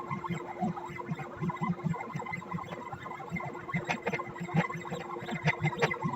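Stepper motors of a CNC pen plotter driving the pen through a drawing: a rapid, stuttering buzz over a steady hum. A few sharp clicks come in the second half.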